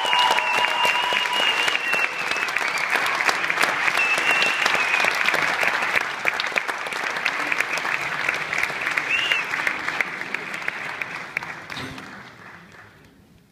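Concert audience applauding, dense clapping with a few high whistles over it. The clapping thins out and fades away over the last few seconds.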